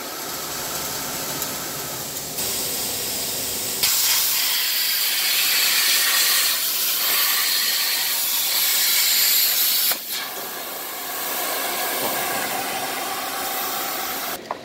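CNC plasma cutter torch cutting mild steel plate: a loud, steady hiss of the plasma arc and its air jet. It is loudest from about four seconds in to about ten seconds in and cuts off suddenly just before the end.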